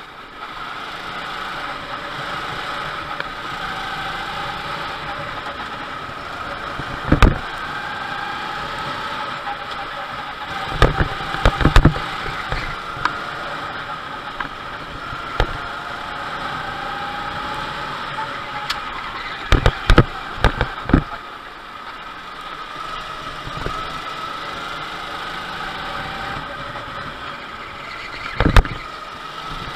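Go-kart engine running, heard on board, its pitch rising and falling gently as the kart drives through corners. Several loud thumps cut through it: one about seven seconds in, a cluster around eleven to twelve seconds, another cluster around twenty seconds, and one near the end.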